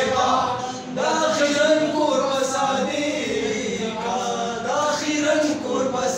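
Young men singing Pashto tapay unaccompanied, long drawn-out sung lines with a short breath about a second in.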